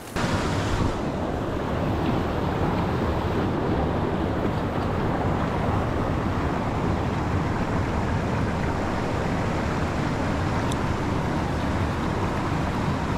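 Steady, deep rushing of fast river current close to the microphone.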